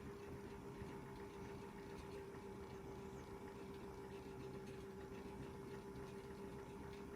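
Modified Bosch toy washing machine's small electric motor spinning the drum at a steady 450 RPM under speed control, giving a faint, even hum over a low rumble.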